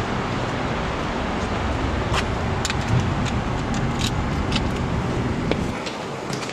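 Steady city street traffic rumble, with a series of sharp clicks from about two seconds in as the building's front door is unlocked and opened. Near the end the traffic falls away and becomes muffled.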